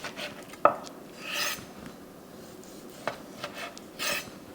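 Knife slicing grilled chicken breast thinly on a cutting board: a sharp tap of the blade on the board less than a second in, then a few rasping strokes and small clicks as it saws through the meat.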